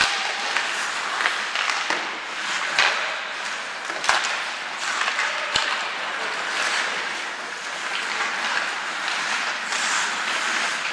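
Ice hockey play in a rink: skates scraping on the ice, with sharp clacks of sticks and puck a few times over a steady hiss of rink noise.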